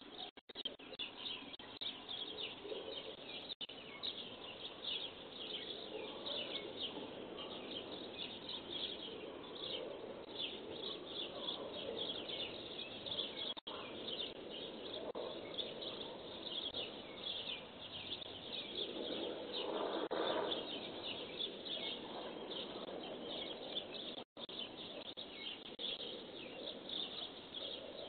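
Dawn chorus of many small birds chirping and tweeting without pause, picked up by a Ring security camera's microphone. A lower, louder call swells about twenty seconds in, and the camera's audio drops out for an instant a few times.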